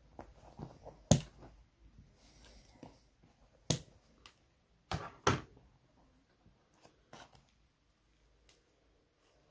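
Scissors snipping the thin silk cords of a macramé bracelet: a few short sharp clicks, the loudest about a second in, a pair around five seconds, and fainter ones later, with light handling of the work between.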